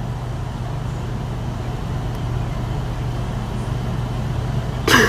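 A steady low hum with an even rushing noise, like a vehicle running. A short cry that rises in pitch comes near the end.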